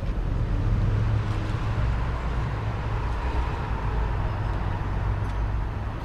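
Street traffic noise: a steady low rumble with a vehicle going by, louder in the middle.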